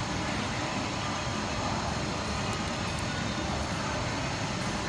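Steady background noise, a low rumble with hiss, with no clear pitched source.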